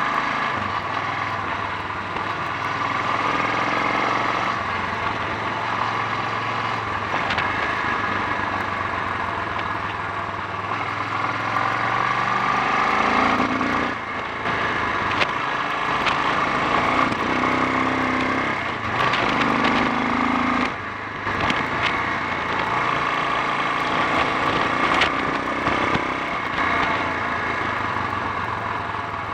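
Honda XL 350's single-cylinder four-stroke engine running as the bike is ridden, its note rising and falling with the throttle and dipping briefly about 14 and 21 seconds in. The bike is being tried for a reported splutter, misfire and bogging when accelerating.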